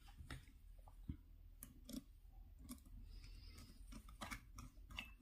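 Faint, scattered clicks and light scrapes of a wire being fitted and tightened into the screw terminal of a switch on a plastic switch board.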